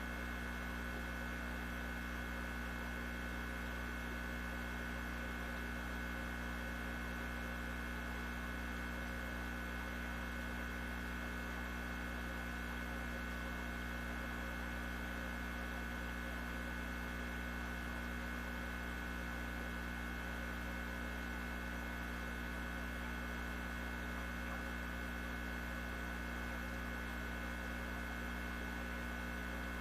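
Steady electrical hum with a buzzy edge and a thin high whine above it, never changing in level or pitch.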